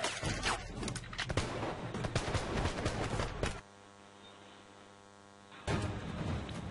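Musket fire from a film battle scene: many scattered shots in quick, overlapping succession. About three and a half seconds in the firing breaks off to a faint steady hum for two seconds, then the dense battle noise resumes.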